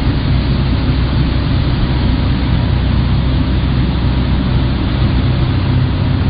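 Motor boat's engine running steadily at speed, a low hum under the rush of water churned up in its wake.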